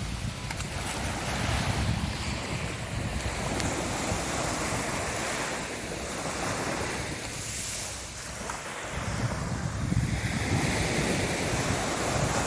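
Sea waves washing onto the beach, swelling and easing every few seconds, with wind buffeting the microphone.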